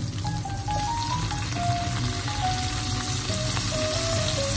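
Minced garlic frying in oil in a pan, sizzling steadily. Background music with a simple stepping melody plays over it.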